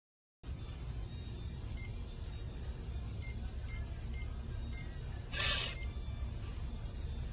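Five short, faint electronic beeps a fraction of a second apart, like touchscreen keypad presses on an electronic door lock, over a low steady hum, followed by a brief rush of noise about five and a half seconds in.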